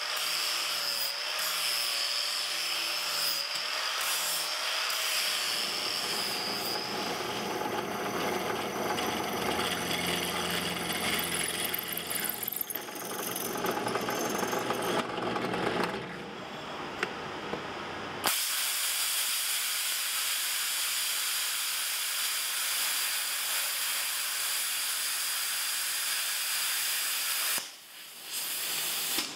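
Metalworking power tools in turn: an angle grinder running with a high steady whine, then a drill press boring through steel plate. About 18 seconds in, a plasma cutter starts with an abrupt, steady air hiss that breaks off briefly near the end and starts again.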